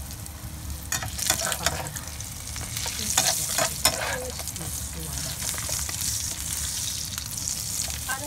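Tuna omelette sizzling steadily in hot oil in a frying pan, with a spatula scraping and knocking against the pan several times between about one and four seconds in.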